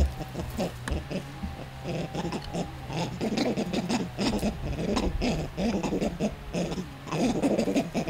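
Vervet monkeys calling in rapid runs of short, harsh calls during an aggressive fight through a fence. The calls come several a second and grow busier and louder about three seconds in.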